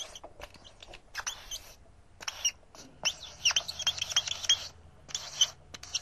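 Marker pen squeaking and scratching in quick runs of short, high strokes, as in writing letters by hand.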